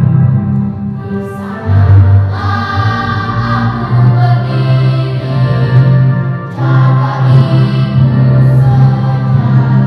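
Children's school choir singing together in long held notes, with short breaks between phrases about a second and a half in and again past the middle.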